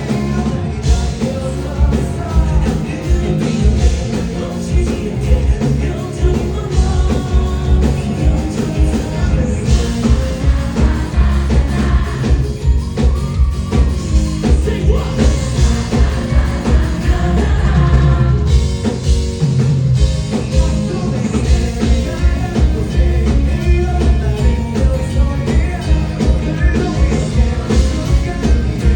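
Live rock band playing loudly with singing, drums and bass keeping a steady driving beat.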